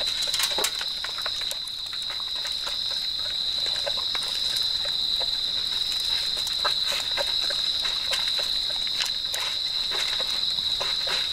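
Insects trilling in one steady high-pitched tone, with irregular chewing clicks and bowl knocks from three dogs eating from their food bowls.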